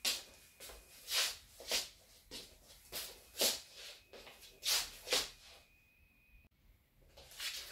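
Toothbrush scrubbing teeth in short, even strokes, about two a second, with a pause of about a second and a half near the end before the strokes start again.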